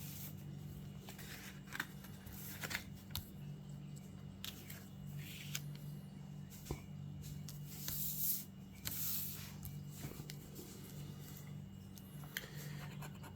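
Paper lottery scratch-off tickets being handled, shuffled and slid about: a scatter of short papery swishes and rustles over a steady low hum.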